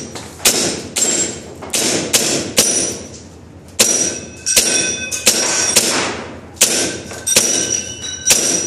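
A string of sharp airsoft gun shots, about one every half second, with a pause of about a second partway through. Several shots are followed by a brief metallic ringing, like BBs striking steel targets.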